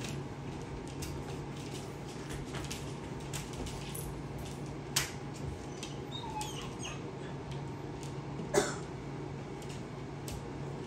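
Puppies play-wrestling: claws ticking and scrabbling on the floor, a faint squeaky whine about six seconds in, and two short sharp yips about five and eight and a half seconds in, the second the loudest.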